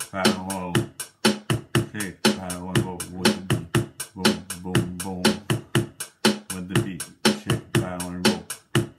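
Beatboxing into a handheld microphone: a quick, steady beat of sharp mouth-made clicks and snares over a low hummed bass line.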